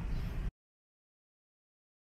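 A low rumble cuts off abruptly about half a second in, leaving dead silence.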